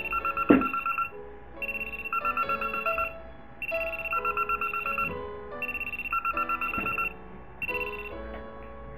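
Mobile phone alarm ringing: short bursts of rapid electronic beeping, one about every two seconds, at a higher and a lower pitch. A single thump about half a second in.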